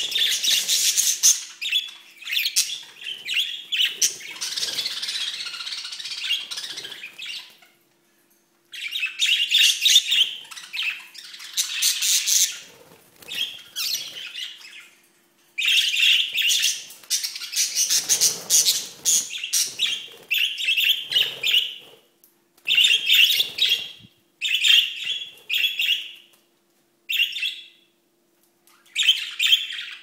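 Budgerigars chattering and chirping in bursts, broken by a few pauses of a second or so.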